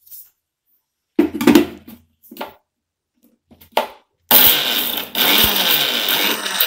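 A few clunks of the steel jar and lid being fitted on a Preethi mixer grinder. About four seconds in, the motor starts and runs loudly, grinding spices, small onions and ginger-garlic paste into a fine paste.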